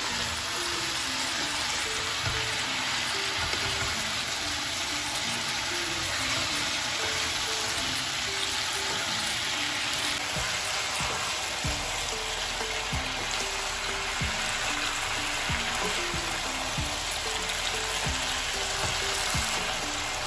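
Cauliflower and potato curry sizzling steadily in oil in a shallow pan while a wooden spatula stirs it, with light knocks of the spatula against the pan. Soft background music with short plucked notes plays under it.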